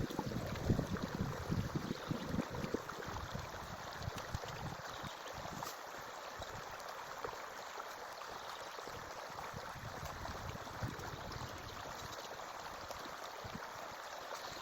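Forest stream running, a steady even rush of water.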